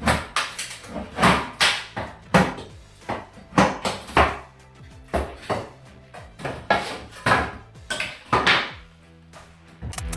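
Irregular, sharp wooden knocks and bangs of pallet boards being hammered and pried apart, over background music.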